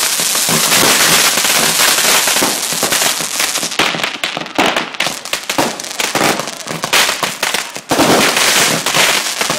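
Fireworks going off: a dense crackle for the first few seconds, then a quick string of separate sharp bangs and cracks, and another dense crackling burst near the end.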